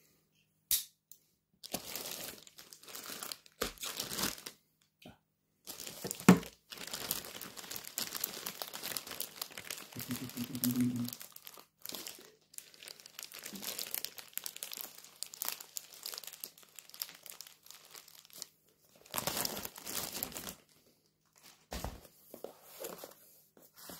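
Plastic shrink-wrap being slit with a utility knife and torn off a cardboard microphone box: crinkling and tearing in irregular bursts, with a sharp snap about six seconds in.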